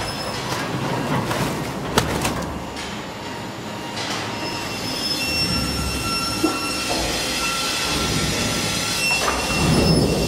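Seydelmann AMR 2500 mixer-grinder running, its steel paddle shafts turning through minced meat in the trough. A steady machine rumble carries high metallic squealing tones, with sharp knocks about two, four and six and a half seconds in and a low surge near the end.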